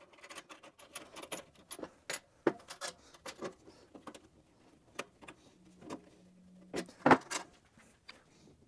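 Small metal clicks and taps as a cable clamp is fitted into a knockout in the heater's sheet-metal wiring compartment, with a louder knock about seven seconds in.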